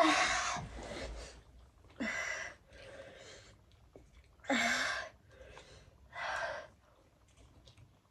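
A woman breathing out hard through an open mouth: four loud, breathy gasps about two seconds apart, the first the loudest. She is reacting to the burning heat of a Jolo chip.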